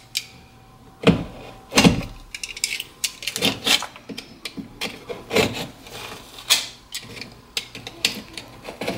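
Irregular knocks, cracks and short scrapes of drywall being broken and pried away from a wall corner.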